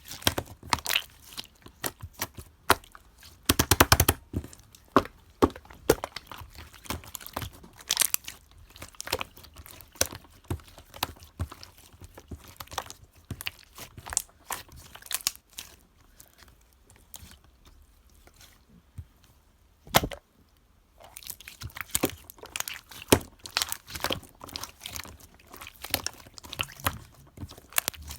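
Clear slime being squeezed and pressed by hand, giving a run of sharp clicking pops and squelches, with a rapid cluster about four seconds in and a quieter spell near the middle broken by one sharp pop.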